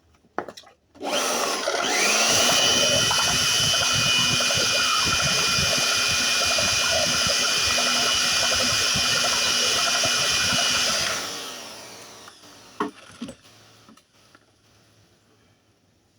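Handheld electric air blower switched on, spinning up with a rising whine and then running steadily for about ten seconds before being switched off and winding down. It is blowing dry the gasoline used to clean carbon off the piston top of a four-stroke grass cutter engine.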